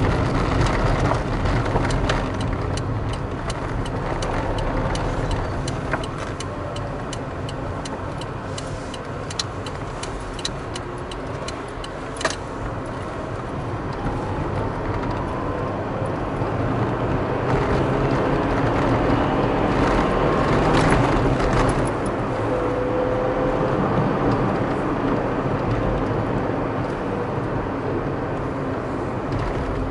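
A car driving through city streets, heard from the car itself: steady engine and tyre noise. A run of light clicks and rattles comes in the first dozen seconds, ending in one sharp click about twelve seconds in.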